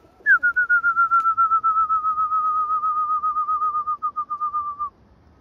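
A long warbling whistle, a rapid wavering trill that opens with a quick slide down from higher and then drifts slowly lower in pitch, stopping shortly before the end. It is a pigeon fancier whistling to call his high-flying pigeons down to the loft.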